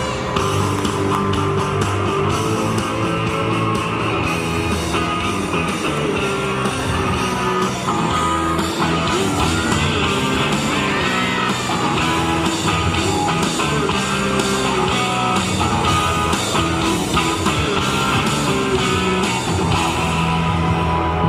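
Gymnastics floor-routine music, a guitar-led rock track, playing steadily throughout.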